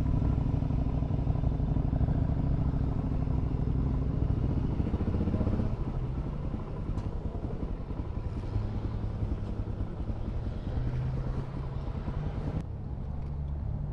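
Suzuki DR-Z400 dual-sport motorcycle's single-cylinder engine running while riding, with wind noise. The engine eases off about halfway through, and the hiss drops away near the end.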